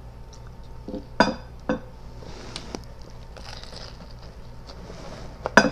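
Eating a BLT sandwich by hand: a few sharp clicks and smacks in the first few seconds, then soft chewing.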